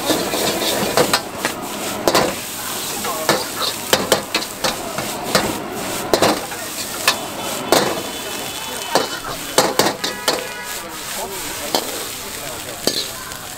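Metal ladle scraping and clanging against a wok as food is stir-fried and tossed over a gas flame. The food sizzles steadily under irregular sharp clanks, about one every second.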